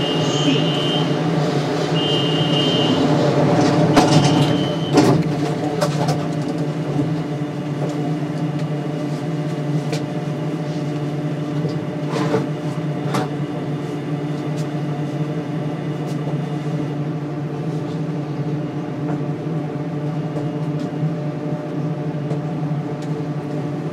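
Steady electrical hum inside a standing SkyTrain suspended-monorail car. A high beep sounds in short repeats during the first few seconds, with a few sharp knocks around four to six seconds in and a couple more later.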